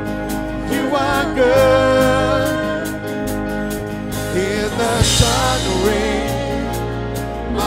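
Contemporary Christian worship song: a singer with vibrato over a band with sustained bass and keys, with a cymbal-like crash about five seconds in.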